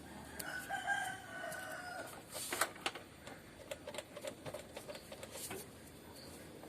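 A rooster crowing once, for about a second and a half, followed by a few sharp clicks.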